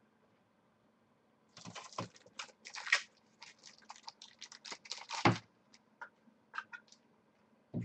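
Typing on a computer keyboard: a quick, uneven run of keystrokes for about four seconds, then a few scattered key clicks, with a soft thud at the very end.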